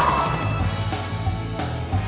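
Background music with a steady bass line and light drums.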